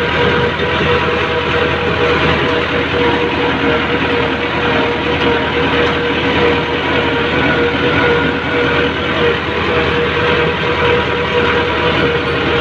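Tractor's diesel engine running steadily at working speed, heard from the driver's seat, a loud constant drone with a steady hum.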